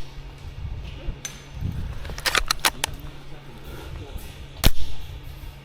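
Airsoft guns firing: sharp cracks, with a quick cluster of four snaps a little past two seconds in and one loud single shot near the end.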